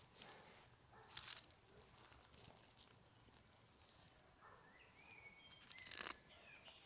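Near-silent woodland with two brief soft scrapes, about a second in and near six seconds in, and a faint, high, gliding bird call around five seconds in.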